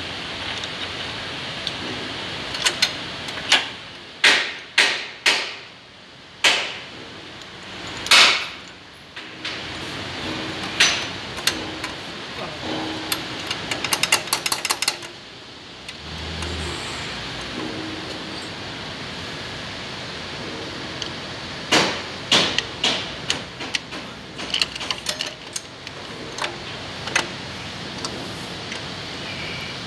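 Metal-on-metal knocks and clanks from tools on a truck cab shock absorber and its mount: sharp strikes in clusters, several with a short ringing tail, and a quick run of light rattling clicks about halfway through, over a steady hiss.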